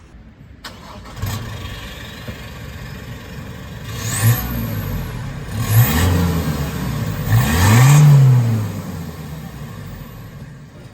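Isuzu D-Max 4JJ3 3.0-litre four-cylinder turbo-diesel, its diesel particulate filter replaced by a pipe into the standard exhaust, starting up about a second in and then revved three times. Each rev rises and falls, the last the longest and loudest, before the engine drops back toward idle. A high whistle rises and falls with the revs.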